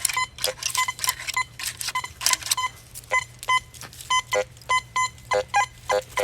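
Teknetics Patriot metal detector sounding repeated short target tones as its coil is swept back and forth over a buried test target, about two or three beeps a second. Most are at one high pitch; lower tones join in near the end. Short brushing noises fall between the beeps.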